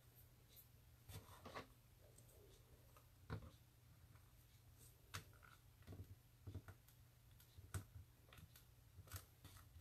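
Near silence, broken by faint, scattered taps and light rustles as a rubber stamp, paper and a stamp-positioning platform are handled and pressed by hand.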